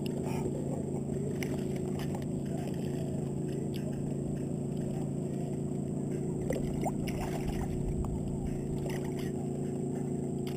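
Bass boat's motor running with a steady hum, a few faint clicks over it.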